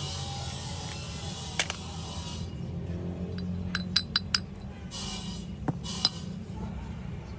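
Sharp metallic clinks of metal pieces knocking together: one, then a quick run of four or five about four seconds in, then two more near the end, over a steady low hum.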